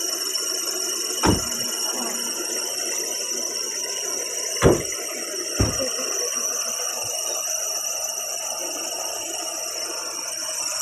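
Car doors of a Tata Indica hatchback being slammed shut: three sharp thumps, the second the loudest, over steady background noise.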